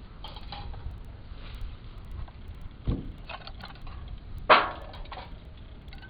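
A dull knock about three seconds in, then a louder, sharp clatter a second and a half later, among faint small clicks and handling noises.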